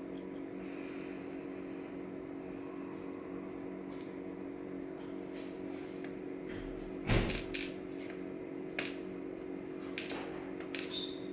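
Small metal clicks and taps of a Goal D9 dimple lock being taken apart by hand, with a sharper knock about seven seconds in and a few quicker clicks near the end, over a steady low hum.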